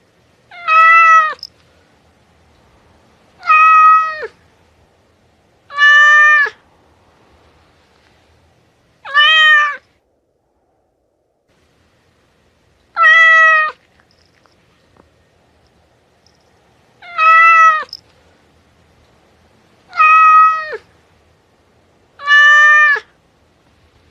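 A domestic cat meowing eight times, each meow short and level in pitch before dropping at the end, with pauses of a couple of seconds between them and a longer pause near the middle.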